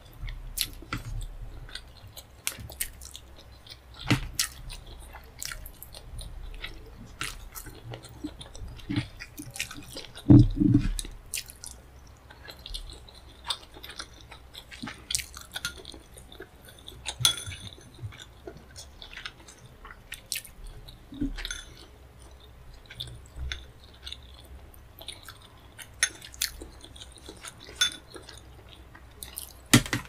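Close-miked chewing of a mouthful of rice and tomato stew, with many sharp wet mouth clicks and smacks. A wooden spoon scoops food on the plate, and there is one louder, deeper sound about ten seconds in.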